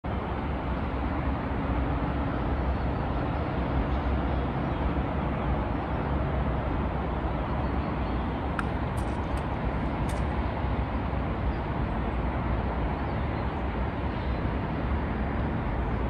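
Steady outdoor background noise: a low rumble and an even hiss with no clear single source, and a few faint, short high ticks a little past the middle.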